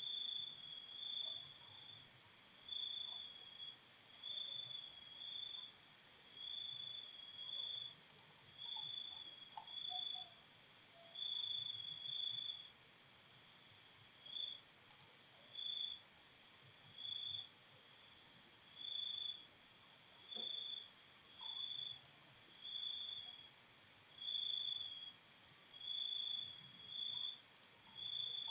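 Insect chirping, a cricket-like call: short chirps about half a second long, repeating about once a second over a steady faint high whine.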